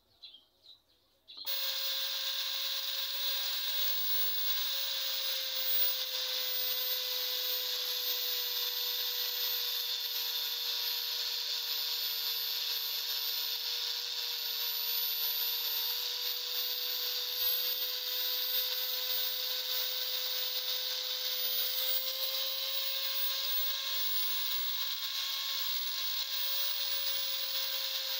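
Electric angle grinder that starts about a second and a half in and then runs steadily with a constant high whine, its disc grinding into a block of wood.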